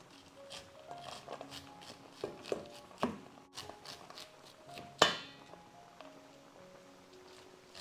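Chef's knife cutting sweet corn kernels off the cob, the kernels dropping into a stainless steel bowl in light scattered clicks, with one sharp ringing clink about five seconds in. Soft background music plays underneath.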